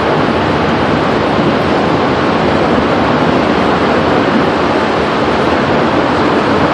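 Steady, loud roar of a violent EF5 tornado passing at close range, an unbroken rushing noise with no let-up.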